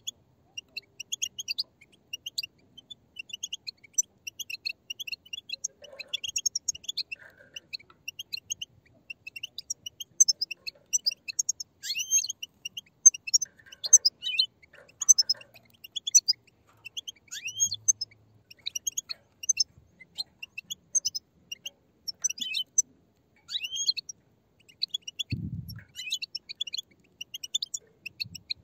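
Many young European goldfinches chattering together: a dense, continuous stream of short, high chirps and twitters. A brief low thump comes about 25 seconds in.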